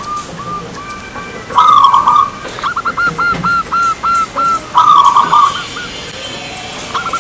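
Zebra dove (perkutut) singing. A run of soft quick coos is followed, about one and a half seconds in, by a long buzzing note and then a fast run of louder coos. A second long note comes about five seconds in.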